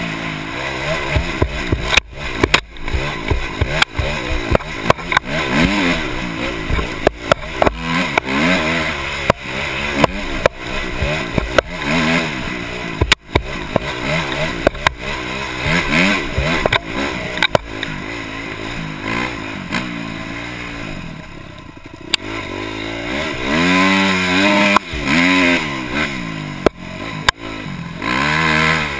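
Dirt bike engine revving up and falling back again and again as it is ridden over a rough trail, with sharp knocks and rattles throughout. About twenty seconds in the throttle eases and the engine goes quieter for a moment, then it revs hard again near the end.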